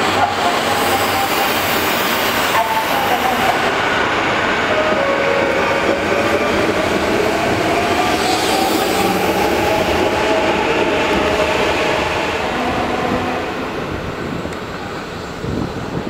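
Sanyo Electric Railway 6000 series electric train pulling out and running past: a steady rumble of wheels on rail with an electric motor whine that dips and then rises in pitch as it gathers speed. The sound fades over the last few seconds as the train leaves.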